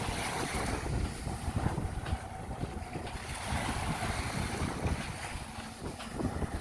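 Sea waves washing onto a beach in a steady hiss, with gusts of wind buffeting the microphone in an uneven low rumble.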